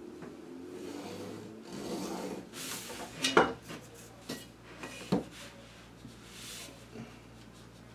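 A metal curve ruler and a pencil on pattern paper. Scraping and rubbing as the ruler is slid into a new position, then a few sharp clacks as it is laid down on the drafting table, the loudest about three and a half seconds in and another about five seconds in.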